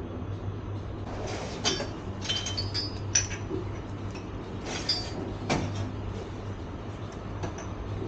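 Clinks and knocks of cups, glasses and dishes handled behind a train's dining-car counter, in a few quick clusters, some ringing briefly, over the steady low rumble of the moving train.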